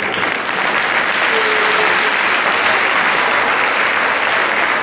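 A large audience applauding, the clapping swelling in the first second and then holding steady.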